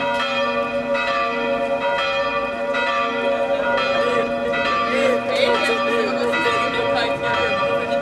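Church bells ringing, several bells struck over and over with their tones overlapping and ringing on. People can be heard talking over the bells about halfway through.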